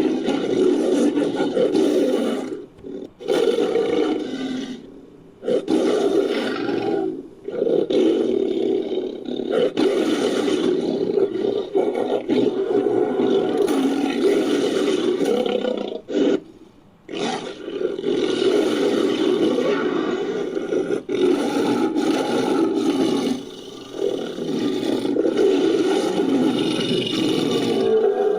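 Designed sound effect of a Barbourofelis fricki, an extinct sabre-toothed cat, made from sampled big-cat roars. It is a string of long, deep roars, each several seconds long, separated by brief breaks.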